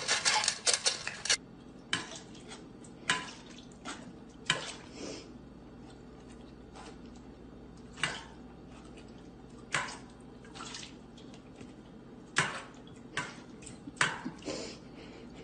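Dog eating dry kibble from a stainless steel bowl: sharp metallic clinks every second or two as food and muzzle knock against the bowl. The first second or so is a rapid clatter of clicks.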